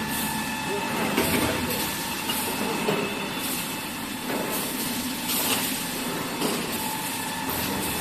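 Kitchen-towel paper converting line running: a steady machine drone with a faint whine, broken by short hissing clacks at irregular intervals.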